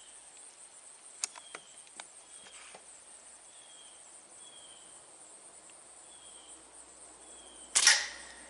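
Beeman QB78 CO2 air rifle firing a single shot near the end, a sharp crack. A few light clicks come a second or two in.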